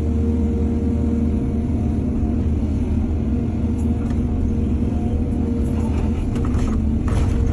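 Heavy earthmoving machine's diesel engine running steadily, with a few short rattles near the end.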